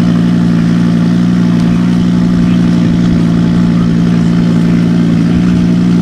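Audi Sport quattro S1 Group B rally car's engine idling steadily, a constant even hum with no revving.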